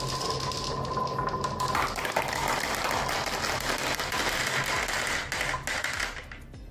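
Many glass marbles rolling down a carved wooden wave-shaped track, clicking against each other and the wood in a dense, continuous clatter over a low rolling rumble, dying down near the end.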